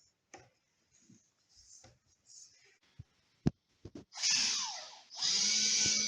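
A few soft knocks and clicks, one of them sharp, then a power tool motor starts about four seconds in with a short burst, stops briefly, and then runs steadily with a whine.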